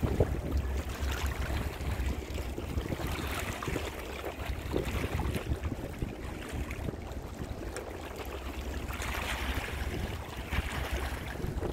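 Wind buffeting the microphone with an uneven low rumble, over a steady outdoor wash of river ambience.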